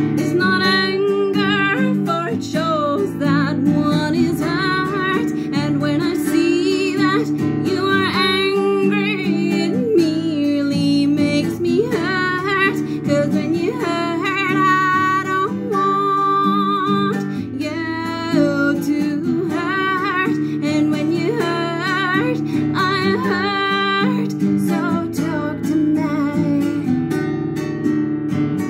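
A woman singing, accompanying herself on a strummed acoustic guitar. Her voice drops out near the end while the guitar carries on.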